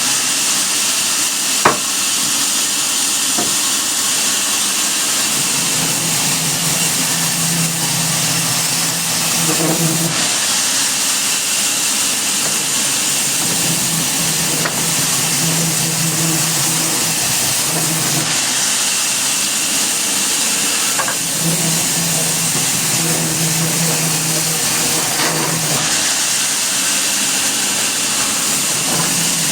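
Sawmill machinery running with a steady hiss and a low hum that swells and fades every few seconds, with one sharp click about two seconds in.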